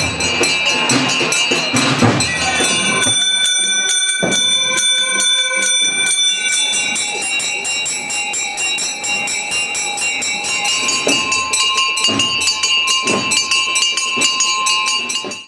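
Several large processional hand bells (barandales) being rung continuously, giving a dense peal of many quick overlapping strokes with ringing tones. The sound cuts off suddenly at the end.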